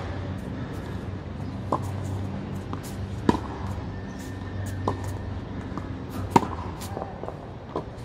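Tennis ball being hit back and forth in a rally on a hard court. Sharp pops of racket strikes and ball bounces come about every second and a half, some loud and close, some fainter.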